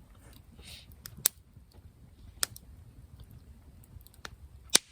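Wood fire crackling: a few sharp, separate pops a second or more apart, the loudest near the end, over a faint low background.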